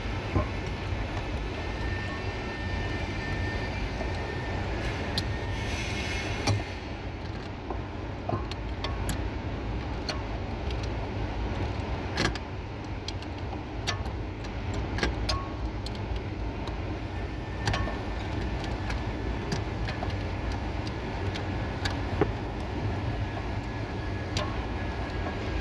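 Scattered light metallic clicks and clinks of hand tools working bolts on a car's steering column, with a sharper knock about six seconds in, over a steady low hum.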